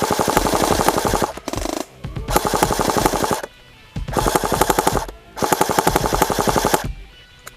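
Airsoft rifle firing on full auto: four bursts of rapid shots, each lasting a little over a second, with a short burst about a second and a half in.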